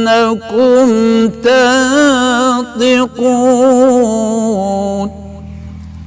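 Male Quran reciter's voice in tajweed-style recitation, holding long ornamented notes that waver in pitch, with short breaks for breath. It stops about five seconds in, leaving a low steady hum.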